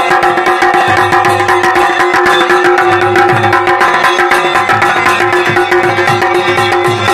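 Kumaoni chholiya band music: dhol and damau drums beating a fast, dense rhythm under the steady drone and melody of a masakbeen bagpipe.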